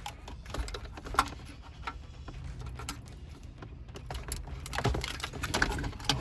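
Hard plastic clicks and rattles of wiring harness connectors being worked loose and unplugged from the back of a car radio, in scattered taps with a cluster of sharper clicks near the end.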